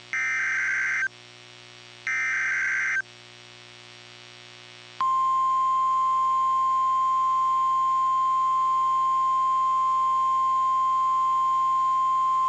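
NOAA Weather Radio emergency alert signal: two one-second bursts of the SAME digital header's screeching data tones, then, about five seconds in, the steady 1050 Hz warning alarm tone comes on and holds. It is the alert that leads into a broadcast tornado warning.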